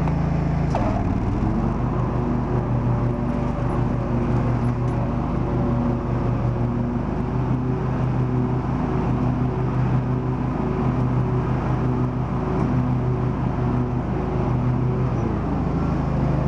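Riding lawn tractor's engine running steadily while mowing. About a second in its pitch dips and comes back up, and near the end it drops again.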